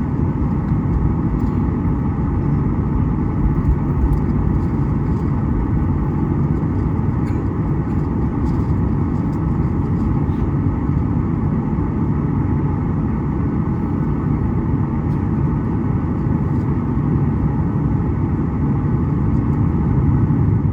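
Boeing 737 cabin noise heard from inside the passenger cabin: a steady, loud rumble of the jet engines and airflow, with a few faint rattles.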